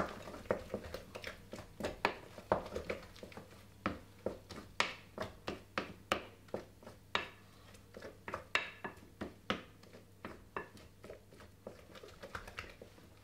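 Wooden spoon creaming butter, sugar and sweetener in a glass mixing bowl, knocking and scraping against the glass in a quick, uneven run of strokes, about three a second.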